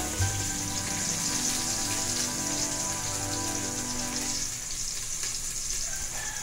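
Onion frying in oil in a wok, a steady sizzle.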